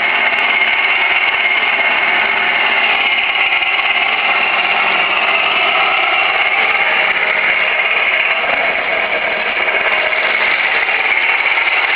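A 1/16-scale R/C tank sound unit plays a simulated tank engine running steadily through its small speaker. The sound is a tinny, even hum with no change in pitch.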